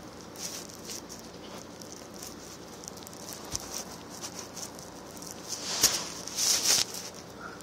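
Handling noise: scattered light clicks and rustling, with two louder swishes near the end.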